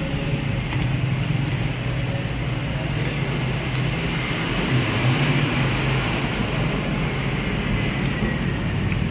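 Steady low mechanical hum with a few faint light clicks in the first few seconds.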